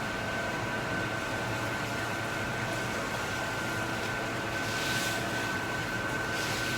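Steady running noise of restaurant kitchen machinery with a steady high whine. Two short hisses come about five and six and a half seconds in.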